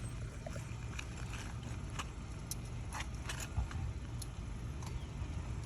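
A replacement asphalt shingle being slid in under the course above, giving scattered scrapes and clicks, busiest in the middle, over a steady low rumble.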